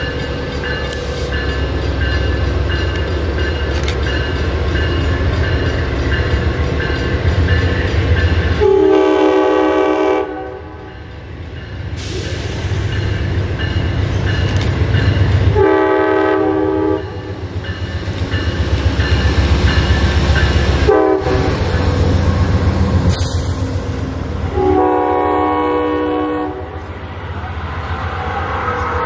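An Amtrak train approaching and passing, its horn sounding two long blasts, a short one and a final long one, the long-long-short-long grade-crossing signal. Under the horn the locomotive's diesel engine rumbles steadily.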